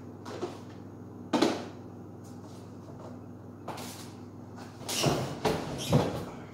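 Kitchen clatter: a few separate knocks and bumps of things being handled, one about a second and a half in, a faint one near four seconds, and a louder cluster of three between five and six seconds. A steady low hum runs underneath.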